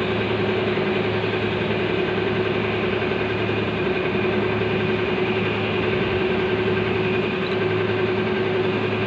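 Steady mechanical hum of a running machine, holding a constant low tone without a break.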